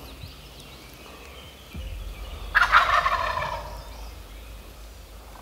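Wild turkey gobbler gobbling once, loudly, about halfway through.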